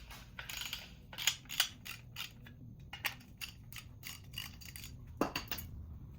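Ratchet wrench with a deep-well socket clicking in quick, uneven runs as wheelbarrow bolts are worked loose, with a louder metal knock about five seconds in.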